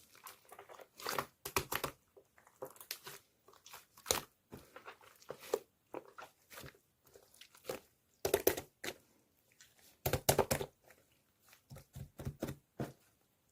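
Hands playing with slime, giving irregular bursts of squishing and crackling as it is pressed, stretched and folded.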